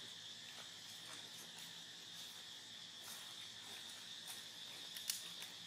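Steady, high-pitched drone of insects in the trees, with a few faint scattered ticks.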